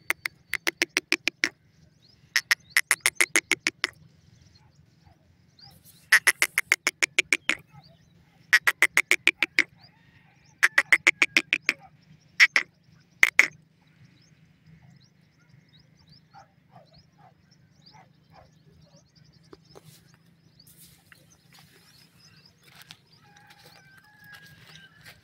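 Francolin (teetar) calling in bursts of rapid, rattling staccato notes, about a dozen a second, each burst a second or so long, repeated about seven times over the first half. After that only faint ticks and soft scattered sounds.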